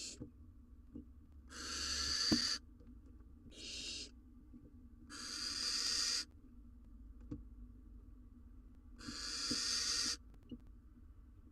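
Barn owls in a nest box giving four harsh, rasping hiss calls, each lasting about half a second to a second, with faint scratches and knocks between them.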